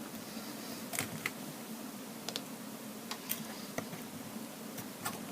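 A few scattered light clicks and taps, like small parts being handled, over a steady low hum.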